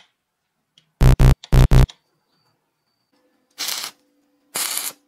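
Four short, loud buzzing tones in quick succession about a second in, then two short bursts of stick-welding arc crackle near the end as a bolt is welded onto a steel roller chain.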